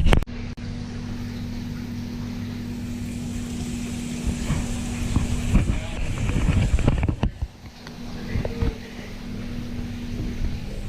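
A motor running with a steady low hum, with some wind on the microphone. It is interrupted abruptly twice, once just after the start and once about seven seconds in, and there are a few short knocks around the middle.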